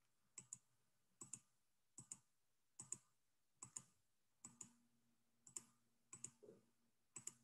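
Faint computer mouse clicks paging through presentation slides: about nine in an even series, roughly one every 0.8 seconds, each a quick press-and-release pair.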